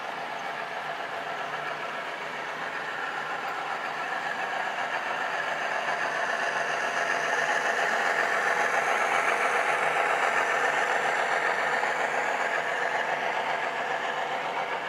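HO-scale model diesel locomotive's onboard sound system playing a diesel engine, mixed with model freight cars rolling on the track. It grows louder as the locomotive passes about eight seconds in, then eases off slightly.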